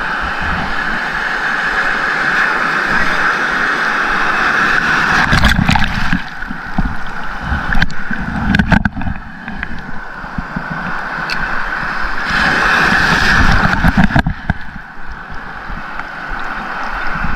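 Ocean surf rushing and washing around a wader standing in shallow water, a steady noisy hiss with heavier low rumbling surges about five to nine seconds in and again around thirteen to fourteen seconds. A few brief sharp knocks come through the rush.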